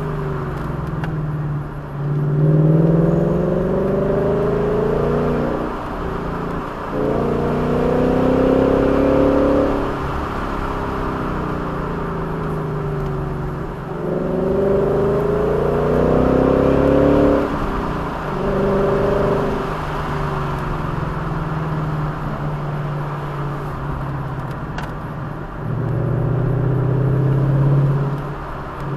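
A vehicle's engine under way, revving up and easing off again and again, each pull rising in pitch, with short breaks between the pulls, over steady road noise.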